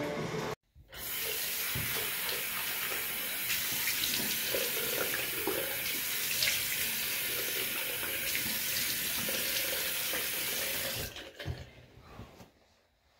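Water running steadily from a tap into a sink, shut off about eleven seconds in.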